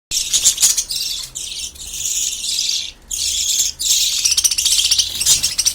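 Baby birds giving loud, high-pitched begging calls in long shrill stretches with brief breaks, as the parent feeds them from her crop.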